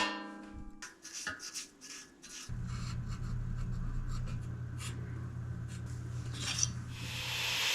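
A sharp metallic clink that rings briefly, then scattered scraping and rubbing of metal work. About two and a half seconds in, a steady low hum starts under continuous rubbing.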